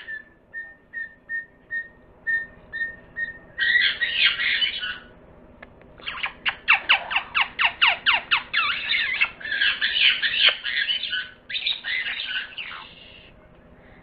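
A flock of sun conures calling. First comes a row of short, even notes, then harsh, shrill screeches with a fast run of falling notes in the middle. The screeching stops about a second before the end.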